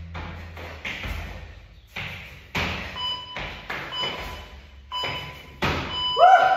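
Repeated thuds of a person doing a jumping floor exercise, landing on the floor about once a second. A short pitched vocal sound rises in at the very end.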